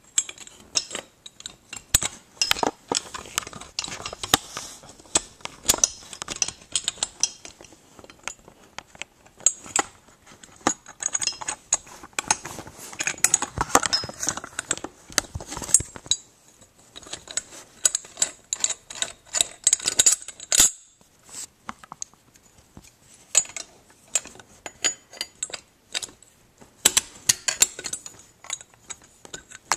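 Metal clicks, clinks and rattles, irregular and nearly continuous, as hands handle and adjust the metal hardware of a drum throne and an antenna mounting bracket, with a few brief pauses.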